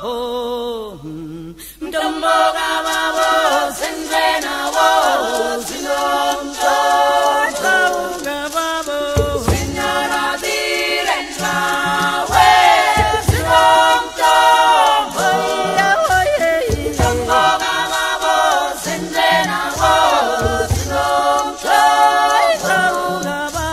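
Unaccompanied group singing in harmony, a choir of voices with no instruments. There is a short break in the voices near the start, and deep bass voices join about nine seconds in.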